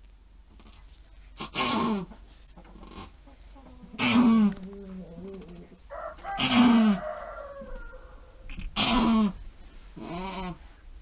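Doe goat in labor calling out while pushing during kidding: five strained bleats, each falling in pitch, about every two seconds.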